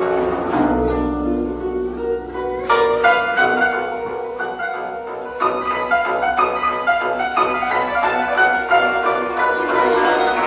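Background instrumental music with plucked and bowed strings.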